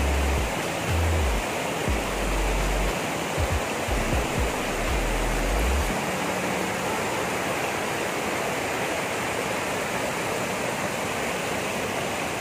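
River water rushing over rocks in shallow rapids: a steady, even roar. Uneven low rumbling comes and goes during the first half.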